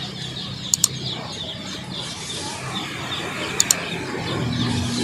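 Many chicks and ducklings peeping together in a constant, busy chorus from crowded cages, with a sharp double click about a second in and again past three and a half seconds.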